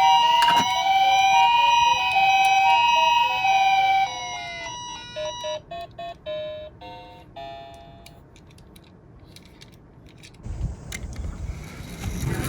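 Two sirens sounding together: an alternating two-tone hi-lo siren and a rising-and-falling wail, which break up and fade out between about four and eight seconds in. A low rumbling rattle starts near the end.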